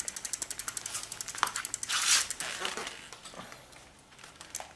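Rear hub freewheel of a 26-inch mountain bike clicking rapidly as the lifted rear wheel spins, the clicks fading and slowing. About two seconds in there is a short hiss as the rear disc brake is applied and stops the wheel.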